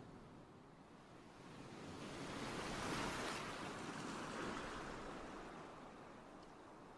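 Faint sea waves washing in: a rush of noise that swells to a peak about three seconds in, then slowly fades.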